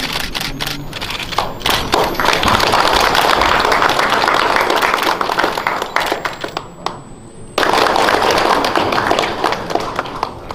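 Audience applauding, a dense crackle of many hands clapping that dips about seven seconds in and comes back sharply.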